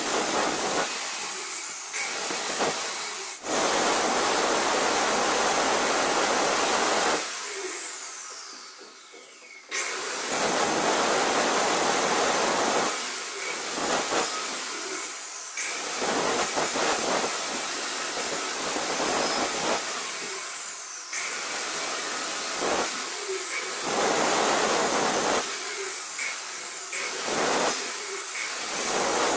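Angle grinder with a cutting disc grinding into a granite countertop along the edge of a sink cutout. The grinder cuts in and out. About eight seconds in it winds down with a falling whine, then starts again at full speed a couple of seconds later.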